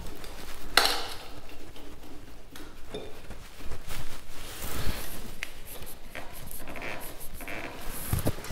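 A clamp being worked and tightened to fix a metal barrel vise to a wooden bench, giving scattered clicks and knocks of metal against wood and metal, with handling noise.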